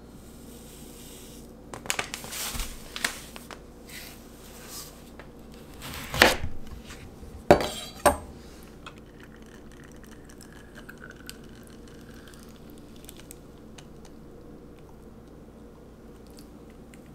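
Kitchen handling sounds: a plastic mixing bowl and utensils clattering, then two sharp knocks of a knife going through a lemon onto a plastic cutting board about halfway through, followed by faint handling.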